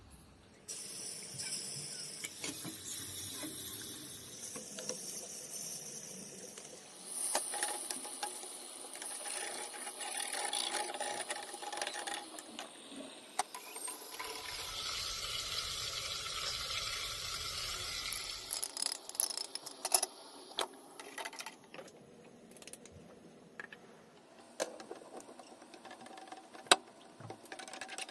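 Kitchen food-preparation sounds: clinks and knocks of utensils, with hissing stretches in the middle and a louder hiss with a low rumble for a few seconds just past the middle.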